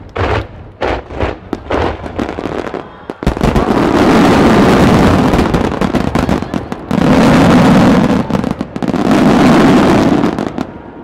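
Aerial fireworks shells bursting: a quick string of separate sharp bangs, then from about three seconds in a dense, unbroken barrage of overlapping bursts that comes in three loud waves and fades just before the end.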